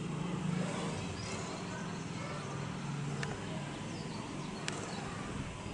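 Outdoor background sound: faint distant voices over a low steady hum, with two short clicks about three and almost five seconds in.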